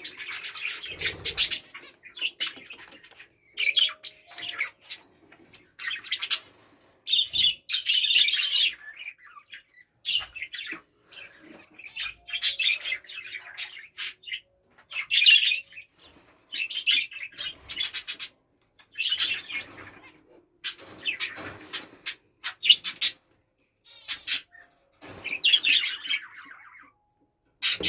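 A flock of aviary budgies and zebra finches chirping and chattering, many short high calls overlapping in irregular clusters with brief gaps between them.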